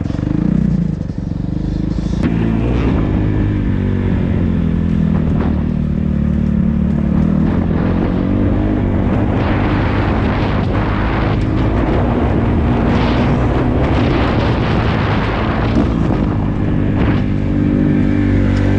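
Dirt bike engine running under load while being ridden on a motocross track, its note shifting with the throttle.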